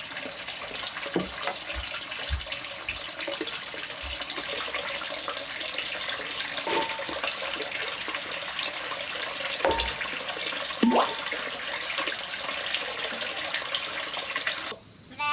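Steady rush of running water from a small stream, with a few soft low thuds. Right at the end it cuts to an animal bleating.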